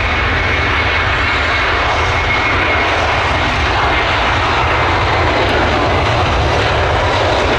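Airbus A330's twin jet engines running at high power as it rolls down the runway: a loud, steady rushing noise with a faint high whine held throughout.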